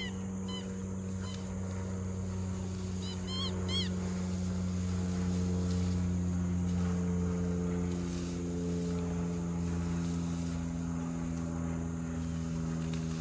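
A steady low motor drone whose pitch drifts slightly upward, with a few short honking bird calls in the first four seconds.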